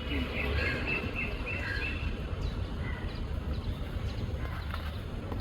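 A bird chirping, a quick series of short high calls in the first two seconds and a few fainter ones later, over a steady low outdoor rumble.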